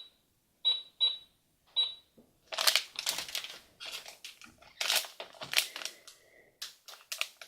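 Barbie Blinging Cash Register toy keys giving four short high electronic beeps in the first two seconds as a price is rung in, followed by crinkling and rustling of plastic toy packaging being handled.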